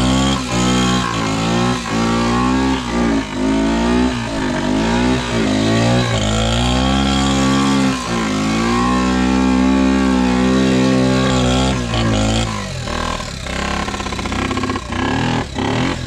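Yamaha Badger 80 ATV engine running under throttle, its pitch repeatedly rising and falling as it revs up and backs off. About three-quarters of the way through it drops lower and turns into a rough clattering.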